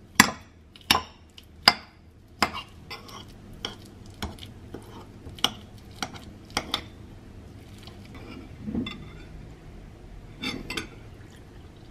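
A utensil knocking and scraping against a bowl while mashing steamed taro. There are three sharp clinks in the first two seconds, then lighter irregular taps.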